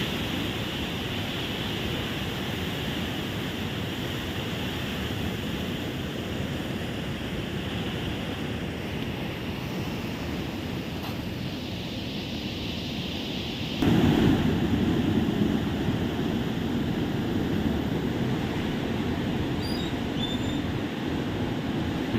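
Floodwater rushing through a reservoir's open spillway gates, a steady noise of churning water. About fourteen seconds in it suddenly becomes louder and deeper.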